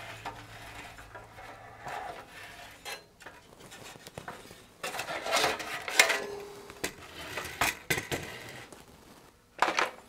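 Sheet-metal cabinet of an HP 430C microwave power meter being slid off its chassis: metal scraping and clinking, with a louder knock near the end.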